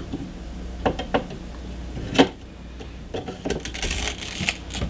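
T-Force Vulcan DDR4 RAM stick being pressed into a motherboard memory slot: a series of sharp plastic clicks and knocks, the sharpest about two seconds in, then a flurry of smaller clicks near the end as the stick seats.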